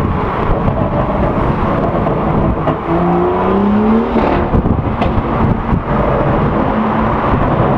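BMW M2 F87 straight-six exhaust with aftermarket downpipes running loud, the pitch rising in a short rev about three seconds in, followed by a few sharp crackles.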